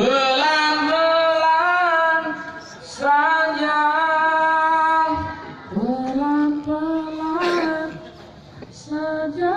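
A man singing solo into a microphone over a PA, a pop-song melody in four long held phrases with vibrato and short breaths between them.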